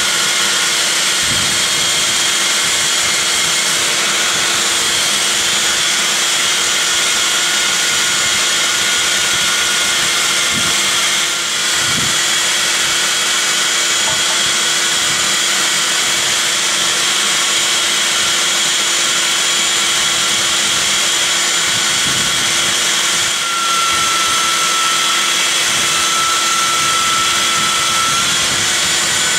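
Compact belt sander with a 180-grit belt running steadily on a dust-extraction vacuum hose, a constant motor hum under a loud airy hiss. Late on, a higher whine comes in as the belt is held against the end grain of a wooden mallet head.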